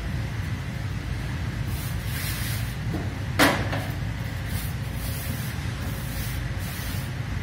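Hands brushing dry rice flour over a stainless-steel worktop in a few soft swishes. There is one sharp knock about three and a half seconds in as the rolling pin is taken up off the steel. A steady low rumble runs underneath.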